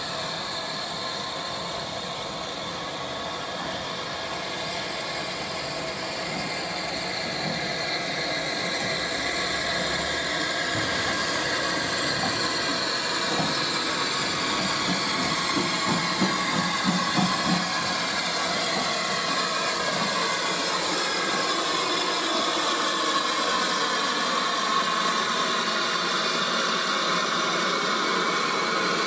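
Steam locomotive running with a steady hiss of steam, growing louder over the first third and then holding; a few low thumps come about halfway through.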